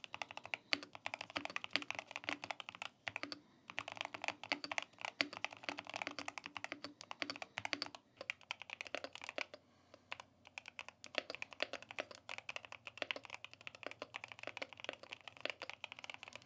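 Keychron K2 HE keyboard with Hall-effect magnetic switches being typed on fast, a dense stream of key clacks broken by a few brief pauses.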